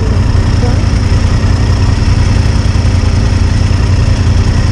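Motorcycle engine running steadily at low revs, a loud even low rumble with a rapid pulse.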